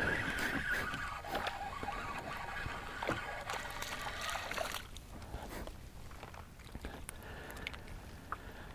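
Water sloshing and trickling, with scattered light knocks and clicks, louder in the first half.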